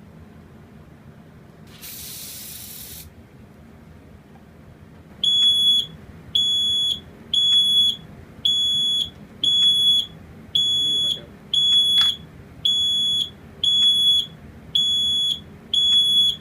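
FNAS500S standalone smoke detector sounding its alarm: a loud, high-pitched beep repeating about once a second, starting about five seconds in. A short hiss about two seconds in comes before it.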